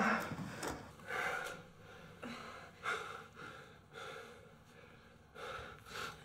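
Two people breathing hard, with gasping breaths coming about once a second.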